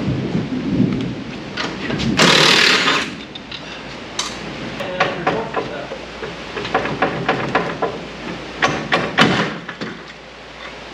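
Metal clanks and knocks as an old front strut and coil-spring assembly is worked loose from the wheel well of a Mk1 VW Rabbit pickup and pulled out. A loud burst of noise, under a second long, comes about two seconds in, and irregular clicks and knocks follow through most of the rest.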